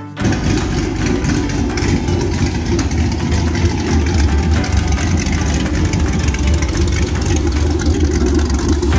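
5.3-litre LS V8 in a jet boat running steadily at idle, on its trailer with a garden hose feeding water to the jet drive.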